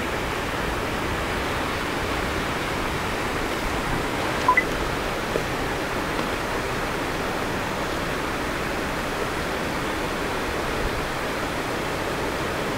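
Steady rushing hiss of outdoor background noise, with a brief high two-note chirp about four and a half seconds in.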